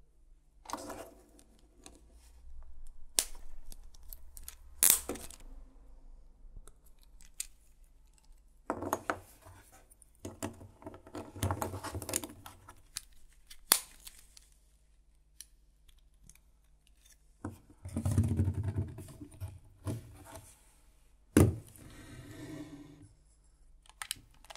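LEGO plastic pieces being handled and pressed together: tread links and wheel hubs rattling and clicking, with several sharp snaps along the way.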